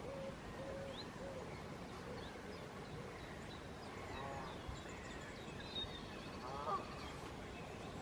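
Faint bird calls: honking calls about four and about seven seconds in, with short high chirps and a brief trill from small birds in between, over a steady background hiss.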